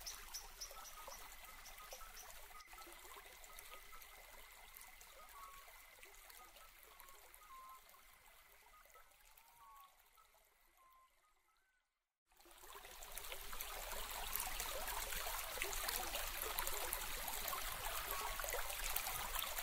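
Faint trickling, water-like hiss with a few short, faint chirps. It fades to silence about ten seconds in and comes back louder, with a fine crackle, about twelve seconds in.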